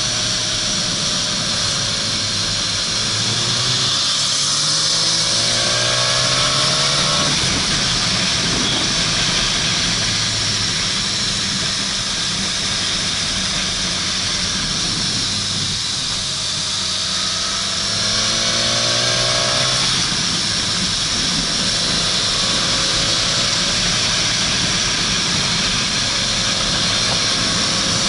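Motorcycle engine running under way, its pitch climbing twice as it accelerates, once a few seconds in and again past the middle, over constant wind noise on the microphone.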